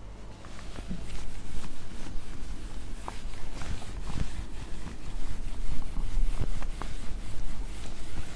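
A handheld whiteboard eraser scrubbing marker ink off a whiteboard: quick, irregular back-and-forth rubbing strokes, several a second, with a few sharper knocks mixed in.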